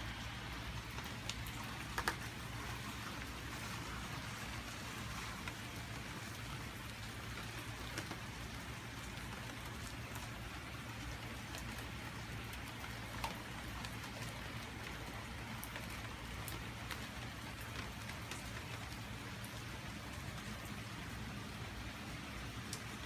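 Steady rain falling, with scattered sharp drop hits; the loudest comes about two seconds in and another about thirteen seconds in.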